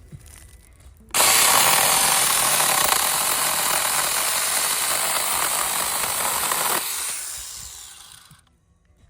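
A 6-inch mini portable chainsaw starts suddenly about a second in and runs at full speed, cutting wood, for nearly six seconds. It then spins down over about a second and a half as it is released.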